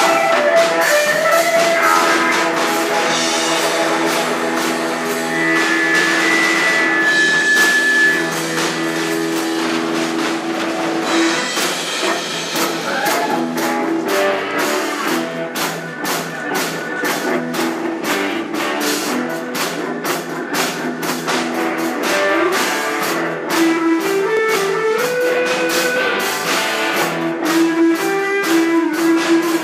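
Live rock band playing an instrumental passage: an electric guitar plays lead lines with bends over bass, a drum kit with cymbals, and keyboard.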